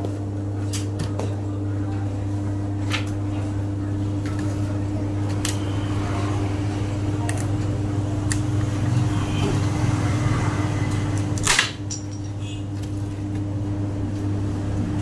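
Electric dough mixer's motor running with a steady low hum, with a few light clicks and one sharper knock about eleven and a half seconds in.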